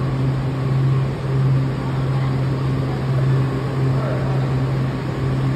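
Washington Metro train standing at the platform with its doors open, giving a steady low hum over a hiss of running air-handling equipment.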